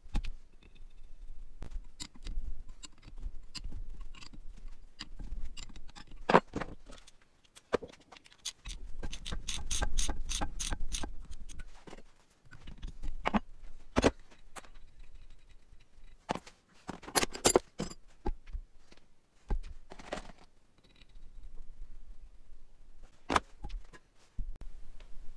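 Steel wheel studs being fitted back into the holes of a Massey Ferguson 35 rear halfshaft hub flange, making irregular metallic clicks and clinks. There are quick runs of clicking about ten seconds in and again around seventeen seconds.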